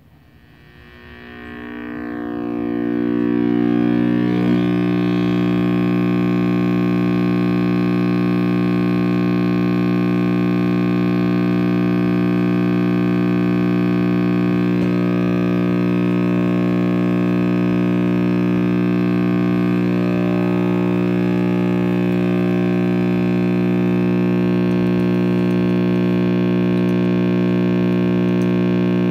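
RCA Victor X551 tube radio's speaker giving a loud, steady mains hum that builds up over the first four seconds and then holds. The owner suspects a badly soldered filter capacitor is behind the hum.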